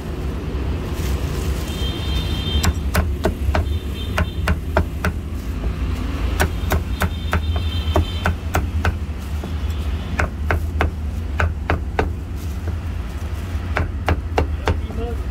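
Meat cleaver chopping braised pork intestines and roast pork on a thick round chopping block: sharp, irregular chops, sometimes two or three a second, in runs with short pauses between them, over a steady low rumble.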